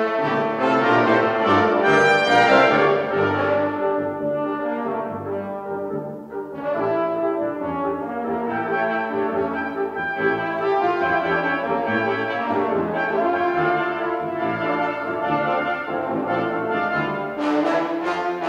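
Brass ensemble of trumpets, French horns, trombones and tuba playing together in full chords. The sound thins and drops briefly about six seconds in, and a loud, bright entry comes near the end.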